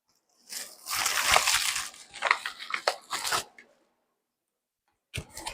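Packaging being torn open and crumpled during an unboxing: about three seconds of crackling, crinkling and tearing, then a short burst of the same near the end.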